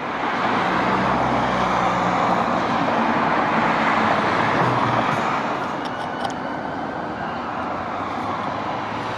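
A motor vehicle passing on the road: a steady engine hum under tyre noise, swelling right at the start and easing off somewhat after about six seconds.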